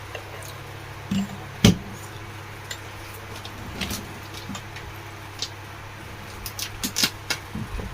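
Scattered light clicks and knocks of screws and metal table fan motor parts being handled while the motor is screwed back together, over a steady low hum.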